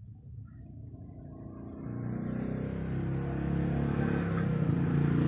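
A motor vehicle's engine running, starting faintly about two seconds in and growing steadily louder as it approaches.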